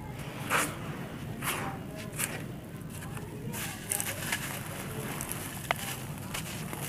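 Dry molded red sand crumbling under bare hands: gritty rustling and crackling as fingers rake loose grit, with several short swishes, then crunching as a sand cylinder is squeezed and breaks apart, and a sharp click near the end.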